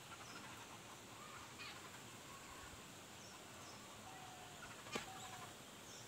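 Faint outdoor bird calls: scattered short high chirps, a faint held note about four seconds in, and a single sharp tap about five seconds in.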